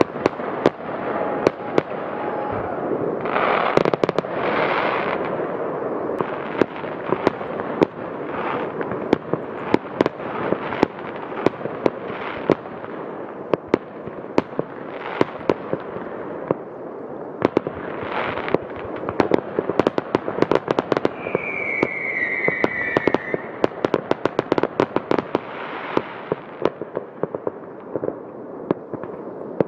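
Aerial fireworks going off: many sharp bangs one after another over a steady crackle. About two-thirds of the way through comes a short whistle that falls in pitch.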